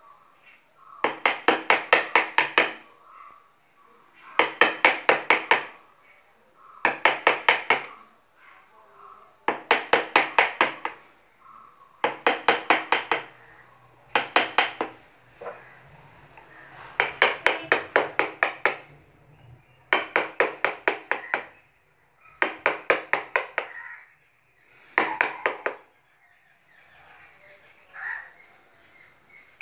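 Carving chisel driven into a wooden block by a mallet, in bursts of six to eight quick taps with short pauses between the bursts.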